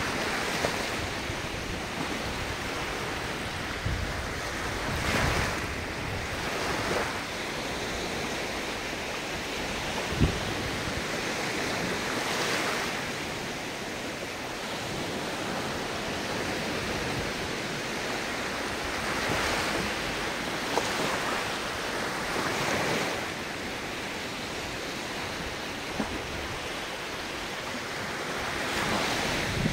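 Ocean waves washing ashore, surging every few seconds, with wind in the background. A brief bump stands out about ten seconds in.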